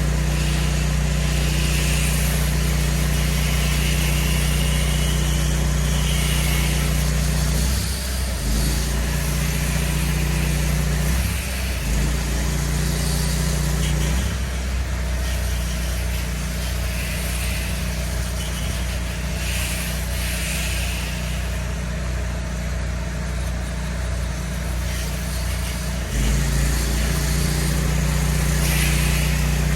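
Petrol engine of a pressure washer running steadily, its note dipping and changing briefly about 8 and 11 seconds in, then running at a different, slightly lower pitch from about 14 to 26 seconds in before returning to its first steady note.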